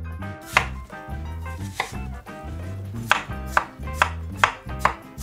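Chef's knife chopping watermelon on a wooden cutting board: about seven sharp knocks of the blade hitting the board, two spaced out near the start and then five in quick succession, about two a second, in the second half. Background music with a steady bass line runs underneath.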